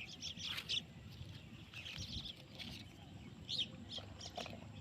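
Small birds chirping, short high calls repeated in quick, irregular bursts, over a faint low rumble.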